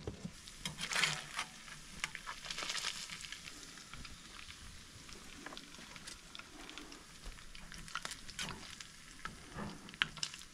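Hot oil sizzling and crackling as pieces of pike fry in a pan, with occasional clicks and scrapes of a metal slotted spoon in the pan.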